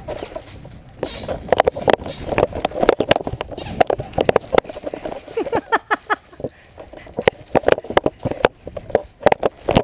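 Greyhound chomping a rubber toy held in its mouth, making a quick, irregular run of squeaks and clicks, several a second.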